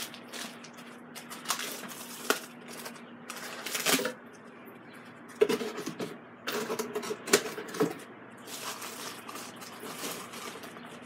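Plastic packaging bag crinkling and rustling as a blender base wrapped in it is lifted out of a cardboard box and handled, with scattered light knocks and clicks.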